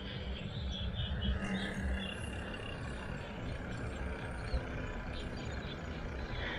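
Wind rumble on a bicycle-mounted camera while riding along a paved lane, with faint high chirping in the background.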